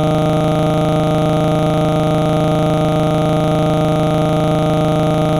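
Steady electronic buzzing tone with many even overtones, unchanging in pitch and level, starting abruptly: a glitch in the recording's audio, not a sound in the room.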